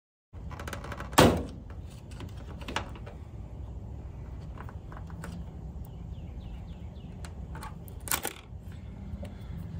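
Clicks and knocks of hand tools and parts as a trim piece is worked loose from under an RV slide-out, with a sharp knock about a second in, another soon after and a quick double knock near the end, over a steady low hum.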